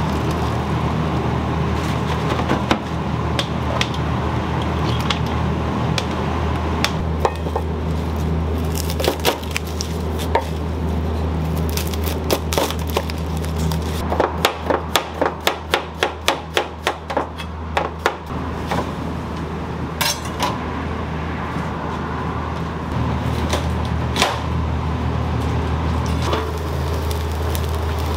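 Kitchen knife chopping garlic on a cutting board: scattered cuts, then a quick run of about four chops a second lasting a few seconds, with a few more cuts near the end. A steady low kitchen hum runs underneath.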